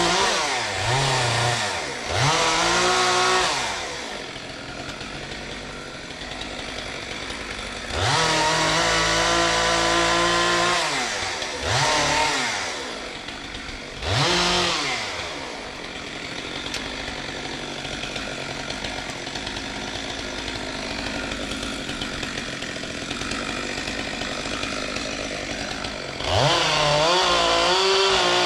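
Chainsaw revved up to full speed again and again, each burst lasting one to three seconds, its pitch rising sharply and falling back to a lower, steadier running between bursts. The longest gap comes in the second half before a final rev near the end.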